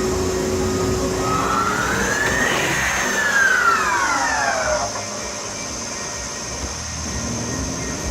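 Bridgeport Romi EZ-Path S lathe's spindle drive whining as the spindle speeds up and slows down: the pitch rises for about two seconds, then falls away over the next two, then settles to a lower hum. A steady high whine runs underneath throughout.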